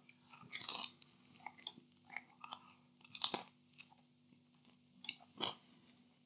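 A man biting into and chewing a slice of thin stonebaked four-cheese pizza close to the microphone. The crust crunches loudest about half a second in, again just after three seconds, and once more shortly before the end, with softer chewing sounds between.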